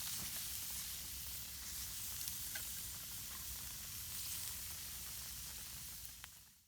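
Chicken gizzards frying in a pan: a steady sizzle with a few faint pops.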